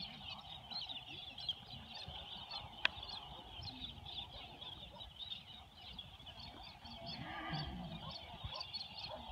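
A flock of birds chattering continuously, many short overlapping calls, over a low irregular rumble, with one sharp click about three seconds in.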